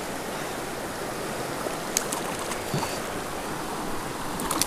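Steady rushing of a shallow, fast-flowing mountain creek over rocks. A faint tick about two seconds in and a few brief sharp sounds near the end.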